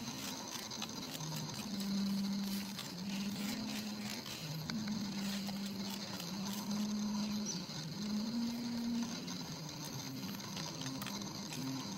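A flying insect buzzing close by, its hum holding a pitch and then shifting up or down every second or so. Underneath is a steady high insect chorus and scattered light ticks.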